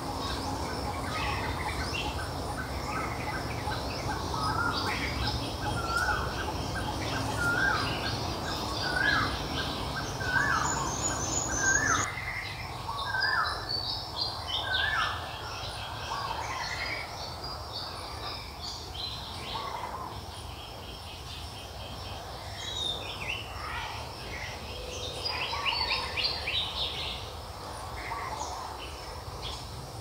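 Several birds chirping and calling over one another: a run of short repeated notes, about one a second, in the first half, with fast high trills throughout. A low background rumble cuts off abruptly partway through.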